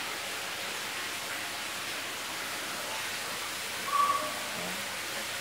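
Steady low hiss from the stove and the hot, buttered nonstick frying pan, with a brief louder sound about four seconds in as pancake batter is ladled into the pan.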